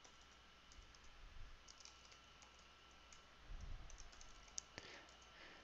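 Faint typing on a computer keyboard: a scattered, irregular run of light key clicks.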